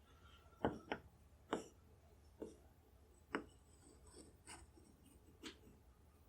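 Small measuring blocks knocking as they are stacked and shifted on a wooden board: a series of faint, irregular light taps and clacks.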